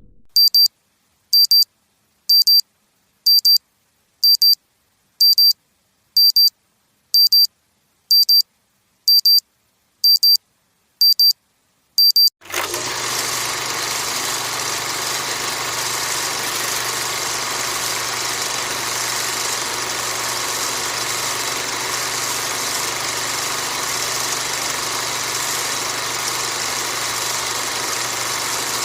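Thirteen short, high electronic beeps, about one a second, then abruptly a motor running steadily with a low hum under a broad noise.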